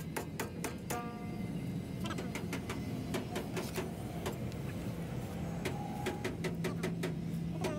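Irregular metallic clicks and clinks from a steel bar worked against a heavy truck's drum-brake assembly, over a steady low hum.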